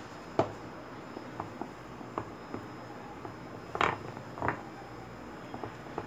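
A metal spoon knocking and scraping against a glass bowl while flour is stirred into a soft bread batter. The knocks come at irregular intervals, with the loudest just after the start and about four seconds in.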